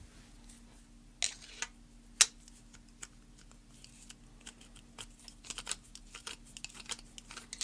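Small metal tool clicking and scraping against a padlock's metal parts while a screw inside the lock body is probed. There are a few sharp clicks, the loudest about two seconds in, then a quick run of faint ticks over the last few seconds.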